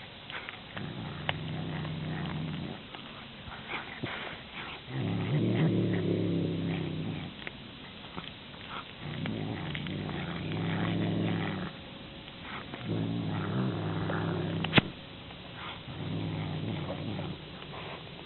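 Domestic cat growling in five long, low rumbles of about two seconds each, with pauses between, a cat's warning growl. A single sharp click sounds near the end.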